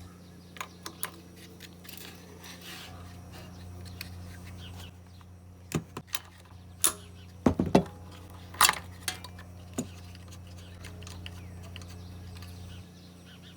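Hand tools and metal parts of a small lawnmower engine clinking and scraping as it is taken apart: scattered sharp clinks, the loudest cluster about halfway through, over a steady low hum.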